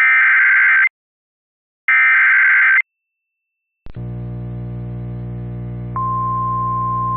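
Emergency Alert System activation: two of the three warbling data bursts of the digital alert header, each about a second long. After a second of silence a low buzzing drone starts with a click, and about two seconds later the steady high attention tone of a National Weather Service alert joins it.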